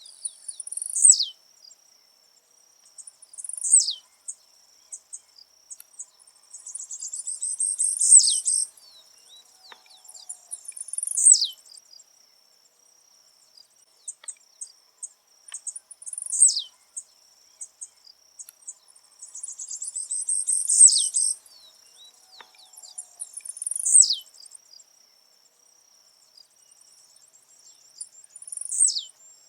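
Blue-black grassquit (tiziu) singing its short buzzy song again and again, every few seconds, each phrase a quick high note sweeping down. Twice the song is a longer, louder buzzing run of notes. A faint steady high insect trill runs underneath.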